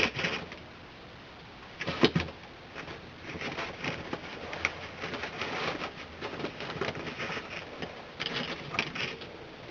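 Faint noise with scattered clicks and knocks, one louder knock about two seconds in; no music or singing.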